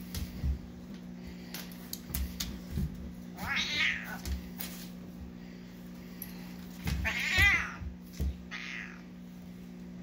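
Domestic cat yowling three times while play-fighting with a dog, the loudest call about seven seconds in, with short knocks and scuffles of paws on a hardwood floor in between.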